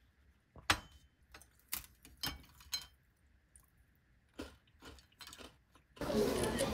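Several sharp, separate clicks and clinks of tableware on a plastic tray, a cup set down among them, spread over the first six seconds. Near the end the sound cuts abruptly to the busy hubbub of a restaurant dining room.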